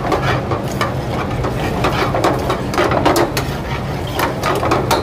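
A metal ladle scraping and clinking against a steel frying pan as thick gravy is stirred over a gas burner: a run of irregular clicks and knocks over a steady low hum.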